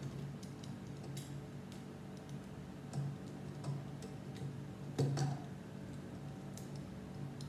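Small plastic clicks and taps of Lego Technic pieces being handled and pressed onto a model, with a few sharper clicks about three and five seconds in, over a faint steady low hum.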